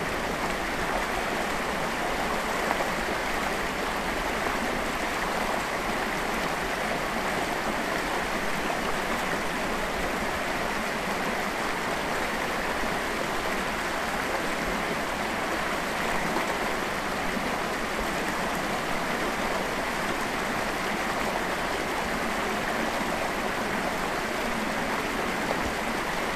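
Stream water rushing and splashing past rocks and a fallen log, a steady, even rush.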